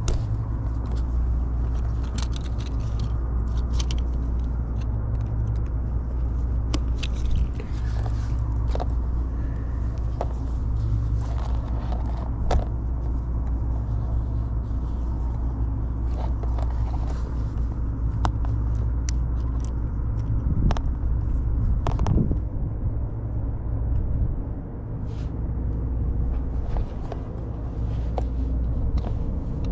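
Steady low mechanical rumble, with scattered light clicks and taps on top.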